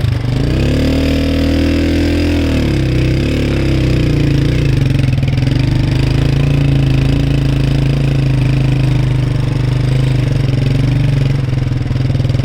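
A vehicle engine running steadily. Its pitch rises and then falls in the first few seconds before it settles into an even hum.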